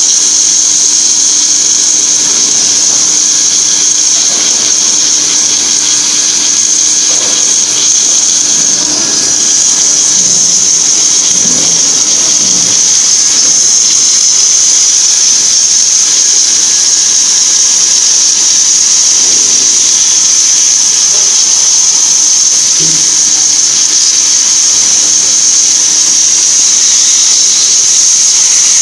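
Automated H-beam welding machine running as its torches weld along the plate joint: a loud, steady high-pitched hiss over a low hum, with no let-up.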